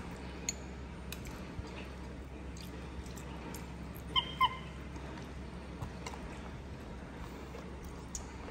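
A baby macaque gives two short, high squeaky calls in quick succession about four seconds in, over faint clicks of a fork and dishes.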